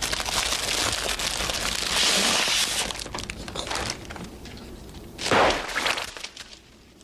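Dense crinkling and crackling with many small clicks, then a short swish a little over five seconds in.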